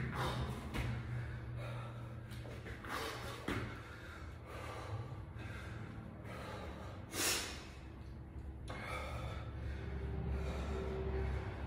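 A man breathing hard, out of breath from burpees, with several separate loud breaths and the loudest exhale about seven seconds in, over a steady low hum.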